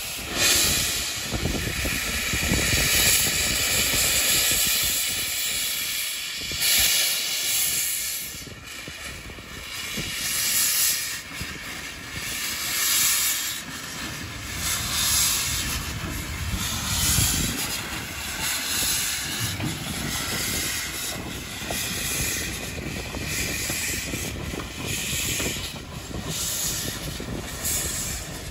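Small saddle-tank steam locomotive moving slowly, with even chuffs about one a second and steam hissing from its open cylinder drain cocks.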